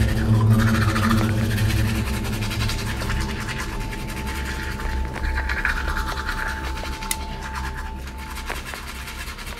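Sound-designed horror soundtrack: a continuous low droning hum, with recurring scratchy rubbing noises over it. A thin steady high tone comes in about three seconds in and stops near the end.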